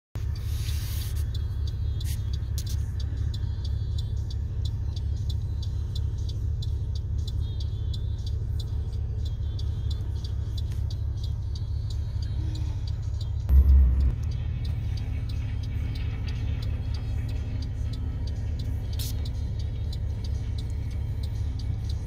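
Steady low rumble of a vehicle driving, heard from inside its cab, with one loud low thump about halfway through.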